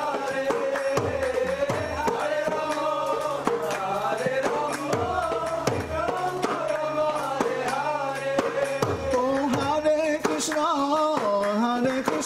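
Mridanga (khol) drum played in a steady pattern of sharp strokes and deep bass strokes that slide down in pitch, under a man singing a devotional chant melody.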